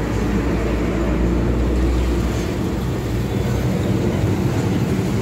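Steady low rumble of engine and road noise heard inside the cabin of a moving Hyundai i20.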